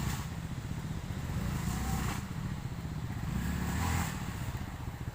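Motorcycle engine running under load, the throttle swelling and easing off about every two seconds as it revs.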